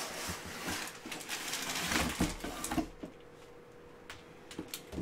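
Bubble-wrapped package being pulled out of a cardboard shipping box: cardboard rustling and scraping with a few light knocks, dying away about three seconds in.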